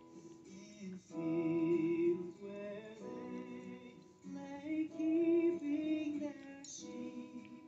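Background music: a woman's voice singing a slow melody of long held notes over soft accompaniment.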